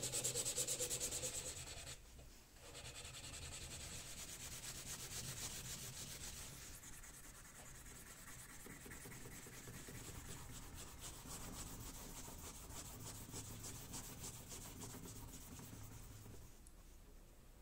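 Hand sanding a wooden octagonal knife handle with sandpaper, in quick back-and-forth rubbing strokes. It is loudest for the first two seconds, breaks off briefly about two seconds in, then goes on more softly.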